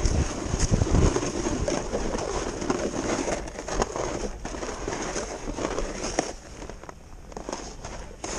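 Irregular crackling and scraping of a snowboarder's movement over packed snow, with a low rumble in the first second and quieter after about six seconds.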